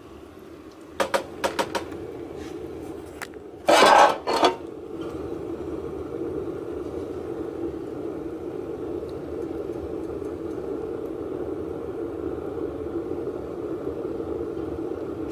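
Homemade sheet-metal wood heater stove: a few sharp metal clinks and a louder metallic clatter near the start as its parts are handled, then the fire's steady roar as the stove draws hard up its flue.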